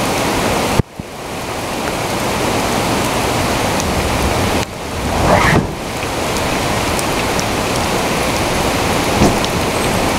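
Heavy rain pouring steadily in a thunderstorm, with thunder rumbling. The sound drops away abruptly about a second in and again around the middle, then builds back up.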